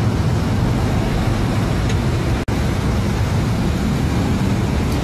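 Steady engine and traffic noise: a sport motorcycle's engine idling, with road traffic passing. The sound cuts out for an instant about halfway through.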